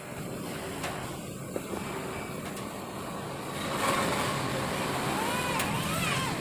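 Electric drill running against a light-gauge steel ladder frame. The motor gets louder about four seconds in, and its whine rises and falls in pitch near the end.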